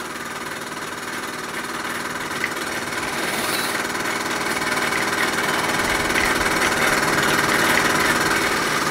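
Bowman E158 model steam engine running steadily under steam, a fast, even mechanical beat that grows gradually louder.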